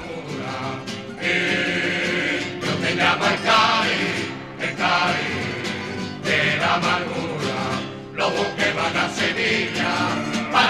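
Music: a choir of voices singing together in sustained phrases.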